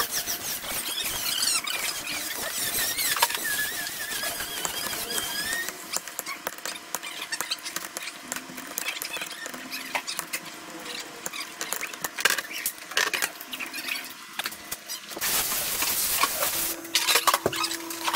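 Hand work with cutters on plastic parts inside an electric scooter deck: squeaking for the first few seconds, then a scatter of clicks and snaps as the plastic is cut away. Near the end a louder rattling rush, as of a metal toolbox drawer being pulled open and rummaged.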